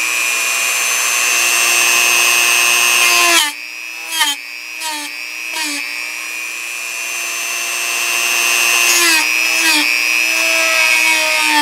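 Dremel Multi-Pro variable-speed rotary tool whining with a quarter-inch deburring bit, grinding down the metal ferrule in a plastic IF-transformer base. It grinds for about three seconds, is lifted off with the motor still running and touched back briefly a few times, then grinds steadily again from about two-thirds through. The motor's pitch dips each time the bit bites; it is worked a little at a time so the heat doesn't melt the plastic.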